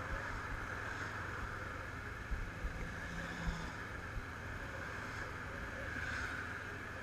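Honda CBF500 parallel-twin motorcycle running at low road speed, with steady wind rush on the helmet-mounted microphone over the engine's low rumble and a few small knocks.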